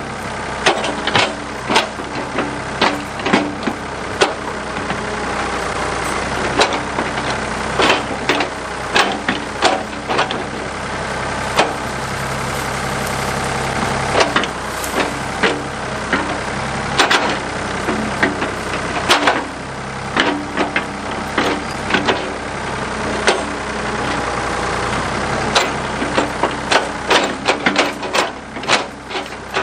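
Backhoe engine running steadily, with frequent sharp clanks and knocks over it from the machine at work.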